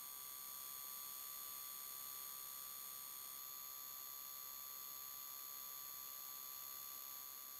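Steady, faint high-pitched electronic whine made of several pure tones over a light hiss, with no engine or wind sound coming through. One of the highest tones stops about three seconds in.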